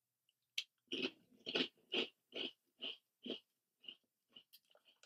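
A baked potato chip bitten and chewed with the mouth close to the microphone: one sharp crunch, then regular crunching chews about two a second that fade away after about four seconds.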